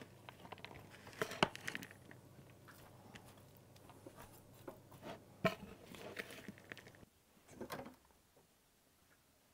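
A large metal spoon stirring a chunky, wet bean salad in a bowl: squelching and scraping, with sharp clicks of the spoon against the bowl, the loudest about one and a half and five and a half seconds in. The stirring stops about eight seconds in.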